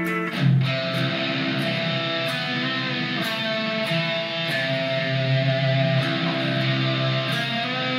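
Electric guitar through a Line 6 POD X3 amp modeller, playing heavy distorted chords; a hard-hit chord about half a second in kicks off a thick, sustained riff.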